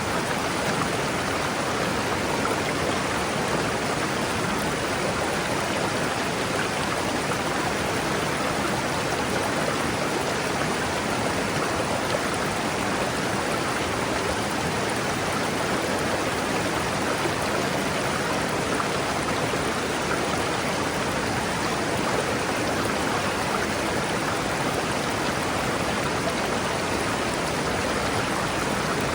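River water rushing steadily over rocks, a continuous even wash of flowing water.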